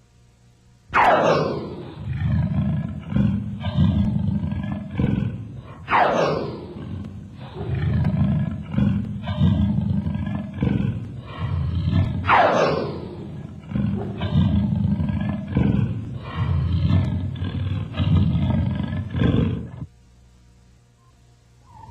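Recorded wild-animal roar sound effect from a jungle cruise boat ride, heard three times. Each roar opens with a high falling cry and trails into several seconds of rough, low growling. The roars stop shortly before the end.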